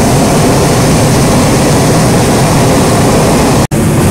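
Hot air balloon's propane burner firing directly overhead: a loud, steady blast that cuts out for an instant near the end and then carries on.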